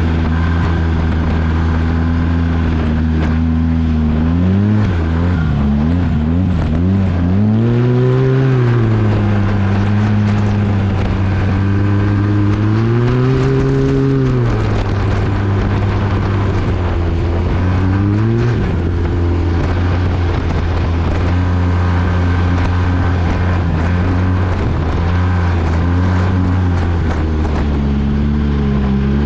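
Arctic Cat 1100 Turbo snowmobile's turbocharged three-cylinder four-stroke engine running at speed through an MBRP exhaust. The engine note wavers up and down several times in the first third, swells and falls back twice more, then holds steady.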